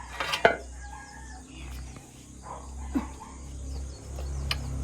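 Chickens clucking, with a few sharp knocks, the loudest about half a second in and another about three seconds in, over a low steady rumble.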